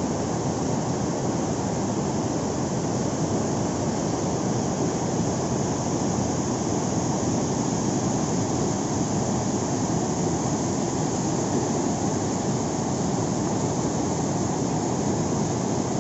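Steady, unbroken rushing of water, heaviest in the low range, from heavy rain and floodwater.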